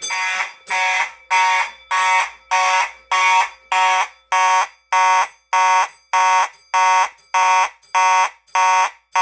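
Faraday fire alarm horn sounding in march time: loud buzzy pulses, about two a second, in a steady unbroken run.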